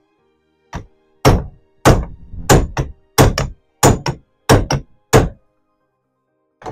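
About ten hammer blows on a piece of aluminium held against a metal cable-tang bracket clamped in a bench vise, bending the bracket over. The blows are sharp and evenly paced, roughly two a second, each ringing briefly.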